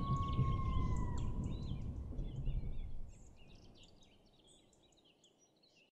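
Tail of a channel-logo sound effect: a low rumble dying away under a held whistle-like tone that slides down and stops about a second in, with bird chirps over it. It all fades out by about four seconds.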